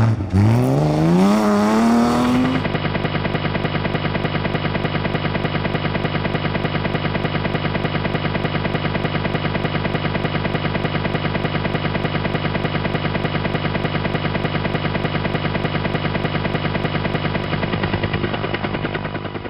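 BMW 325 rally car accelerating hard on gravel, its engine pitch rising through the revs. About three seconds in, the sound cuts abruptly to a steady engine-like hum at a constant pitch with an even, rapid pulse, which fades out at the end.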